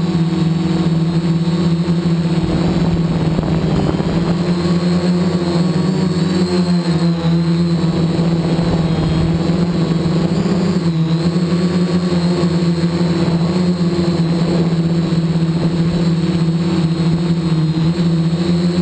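Karbonic-X quadcopter's electric motors and propellers buzzing steadily, heard from on board the craft in flight. The pitch dips briefly a couple of times as the throttle changes, then settles back.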